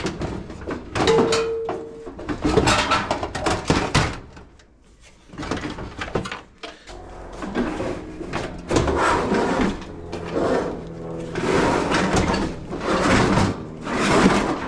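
Clattering, knocking and scraping of dryer parts being handled and pulled apart during disassembly, in irregular loud bursts with a quieter gap about four to five seconds in.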